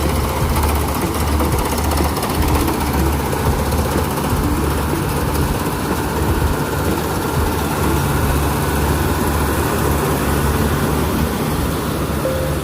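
Diesel engine and threshing machinery of a Kubota rice combine harvester running steadily, a constant low hum under a dense mechanical clatter.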